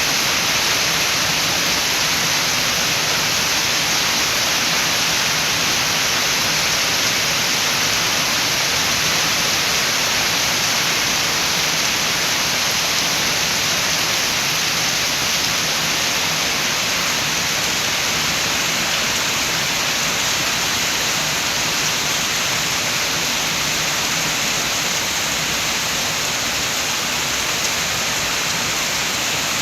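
Steady rain falling, an even, unbroken hiss with no separate drops or gusts standing out.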